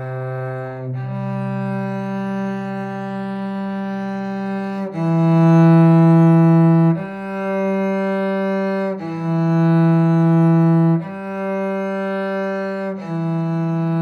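Cello bowed in long sustained notes, each lasting about two seconds. In the second half it steps back and forth between two pitches, with the line of a slow C major round.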